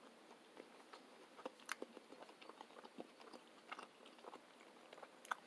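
Faint chewing of a mouthful of juicy steak, a scatter of soft irregular mouth clicks.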